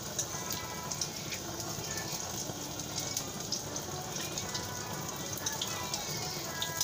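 Steady crackling and bubbling from a steaming pot cooking on a gas stove, many small pops throughout, with faint music underneath.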